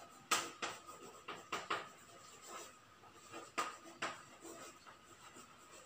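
Chalk writing on a blackboard: a run of light, sharp taps and short scratchy strokes at irregular intervals as letters are written, with brief pauses between.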